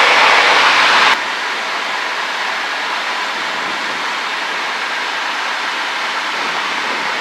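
Steady cabin noise of a Cessna 152 in flight: engine, propeller and airflow as a dense hiss. It drops suddenly in loudness about a second in, then carries on steady.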